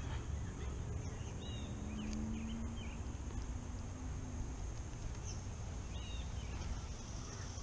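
Birds chirping in short, separate calls over a steady high-pitched insect drone, with a low rumble underneath.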